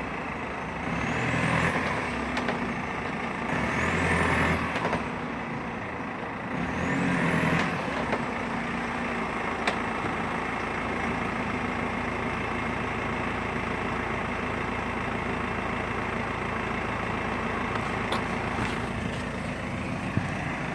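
BMW E46 320Cd diesel car running, with three swells of engine and road noise in the first eight seconds, then steady running. A few sharp single cracks come about ten seconds in and twice near the end: the cracking under hard braking that comes from the loose, untightened bolts of the steel protection plate under the engine bay.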